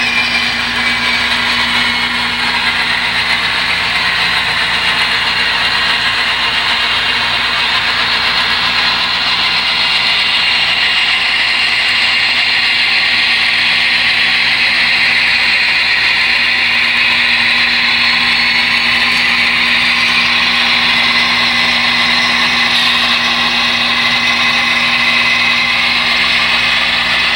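HO-scale model diesel locomotives running on the layout: a steady mechanical hum and whirr that holds without a break.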